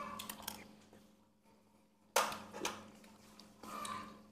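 A metal spoon is set down against a ceramic bowl at the table, giving two sharp clinks a little over two seconds in. A steady low hum runs underneath.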